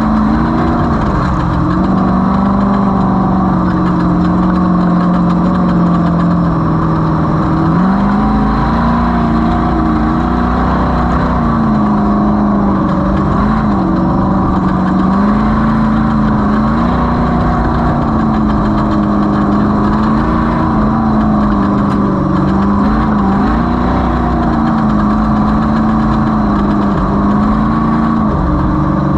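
Desert off-road race vehicle's engine running hard without let-up, its pitch rising and falling every second or two with the throttle, over a low rumble, with a thin steady high whine.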